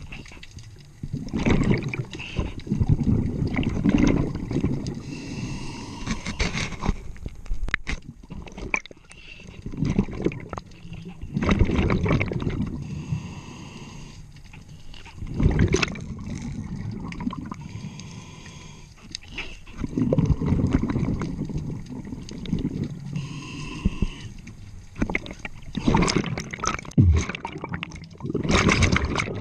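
Scuba diver breathing through a regulator underwater: a quieter hissing inhale through the demand valve with a faint steady whistle, then a loud gurgling rush of exhaled bubbles, about five breaths in all.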